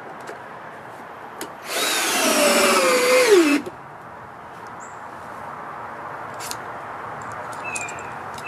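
Power drill driving a deck screw into wood for about two seconds, its motor pitch sinking at the end as the screw pulls down and seats. A few light clicks and taps follow.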